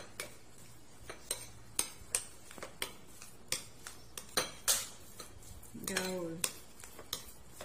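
Metal fork clinking and scraping against a china plate while mixing mashed boiled egg with mayonnaise: irregular sharp clinks, some in quick pairs.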